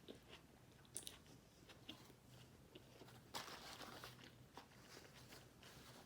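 Faint close-up chewing and biting of a Whopper cheeseburger, with small wet mouth clicks. A louder crunch comes about three and a half seconds in.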